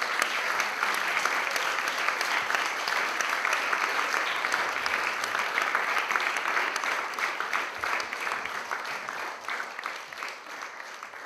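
Audience applauding: many hands clapping in a dense, steady patter that thins out and fades near the end.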